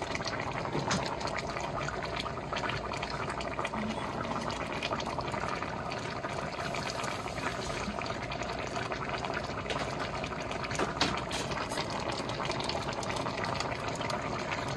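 Turkey-neck gravy with butter beans simmering in a pot on the stove: a steady bubbling with many small pops.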